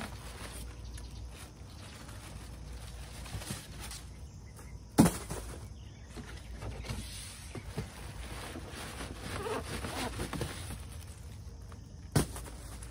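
Rustling and scraping of plastic-bagged packing cushions being pulled out of a cardboard shipping box. There is a sharp knock about five seconds in and another near the end.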